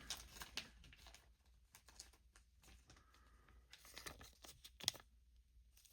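Faint rustling and light clicks of trading cards and pack wrappers being handled, with one sharper click about five seconds in.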